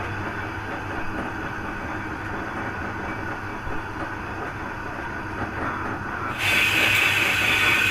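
Jeweller's soldering torch hissing steadily with a low hum while a gold chain joint is soldered; the hiss grows louder and brighter about six seconds in.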